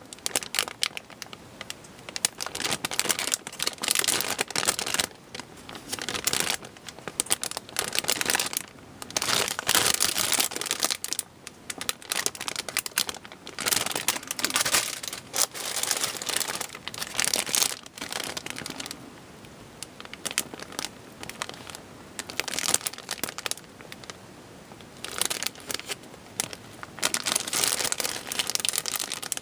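Clear plastic polybags holding plastic model-kit runners crinkling and rustling as they are handled, in irregular bursts with a quieter stretch about two-thirds of the way through.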